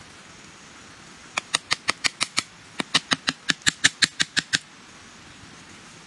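A quick, regular run of sharp clicking notes, about six a second, starting about a second and a half in, pausing briefly, then going on for close to two seconds more before stopping.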